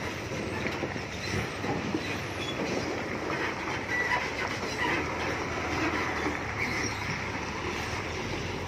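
Loaded self-loader truck carrying a Cat 320D excavator rolling slowly through flooded potholes: a steady low engine rumble under the noise of tyres in muddy water, with scattered rattles and short squeaks from the loaded deck and chassis.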